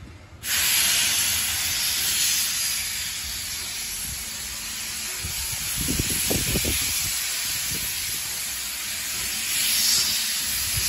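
C12 steam locomotive blowing off steam from low at its front end, most likely the cylinder drain cocks: a loud, steady hiss that starts suddenly about half a second in. A few low thuds come around the middle.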